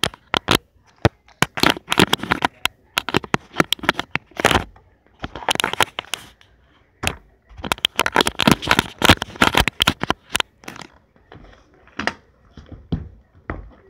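Handling noise from the recording phone rubbing and knocking against fabric: a dense, irregular run of crackles and clicks that thins out near the end.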